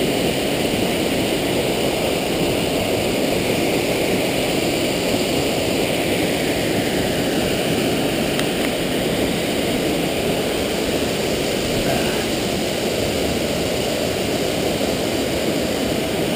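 Ramsey Cascades waterfall rushing steadily: falling water pouring over rock into a pool, one even, unbroken sound.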